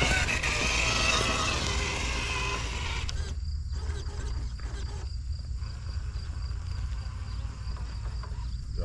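Radio-controlled rock crawler's electric motor and gear drivetrain whining as it drives, its pitch wavering. The whine drops away about three seconds in, leaving a low rumble and a faint steady high-pitched tone.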